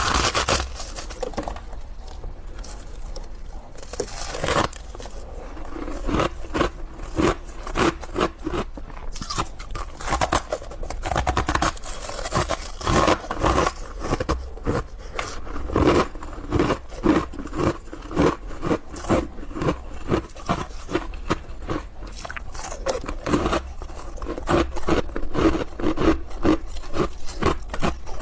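Close-miked chewing of soft, powdery ice: a steady run of crisp crunches, a few a second, as the ice is bitten and ground between the teeth.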